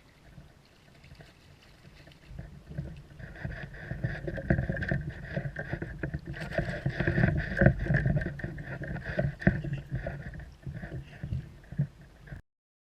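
A kayak moving on the water: a rumbling, knocking water-and-hull noise that grows louder a couple of seconds in and cuts off suddenly near the end.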